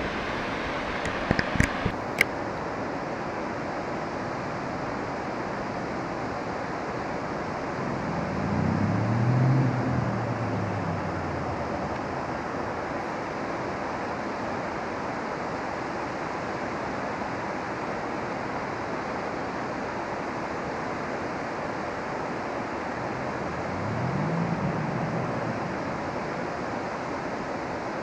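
Steady rushing of flowing water. A few sharp clicks come about a second or two in. Twice, a low hum swells and fades, rising and then falling in pitch.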